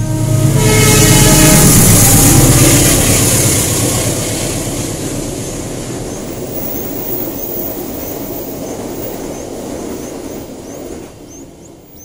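A loud passing vehicle with a horn-like tone and rumble, loudest in the first few seconds, then fading away over the next several seconds. Faint short high chirps repeat in the background.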